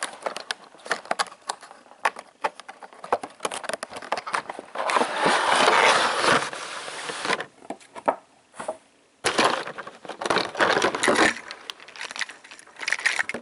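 Cardboard box and plastic packaging of a toy train set being handled and opened: crinkling and clicking throughout, with a longer, louder rustle from about five to seven seconds in.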